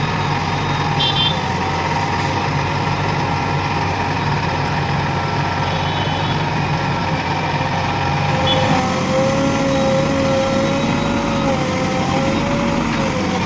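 JCB 3DX Plus backhoe loader's diesel engine running steadily, with a high whine that drops to a lower, wavering pitch about nine seconds in.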